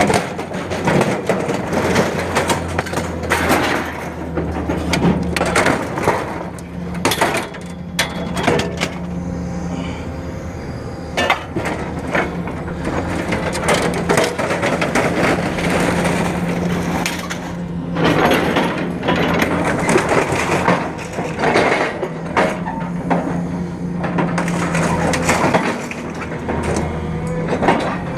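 Excavator's hydraulic grapple grabbing and dragging scrap metal and appliances out of a wooden-floored trailer bed: repeated sharp cracks, clanks and crunches of metal on metal and wood, over a steady engine hum.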